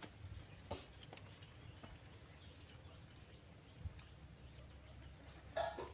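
Faint clicks and rustling of hands pulling apart grilled fish on banana leaves while people eat, with a short pitched call near the end.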